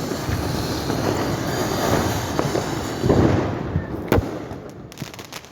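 Diwali firecrackers going off: a dense, continuous crackling for about four seconds, then a single sharp bang and a few scattered pops.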